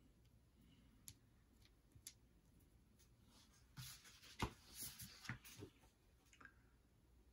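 Mostly near silence, broken by a few faint clicks and then a short cluster of clicks and taps about four to six seconds in: small game pieces being handled on a tabletop.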